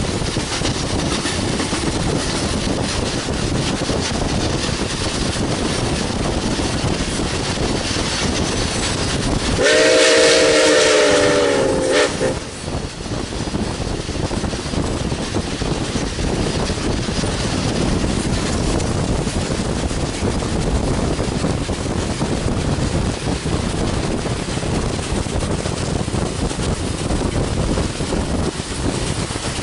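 Nickel Plate Road 765, a 2-8-4 Berkshire steam locomotive, blows one long steam whistle blast of about two and a half seconds, starting about ten seconds in, over a steady rushing noise of wind and the moving car pacing the train.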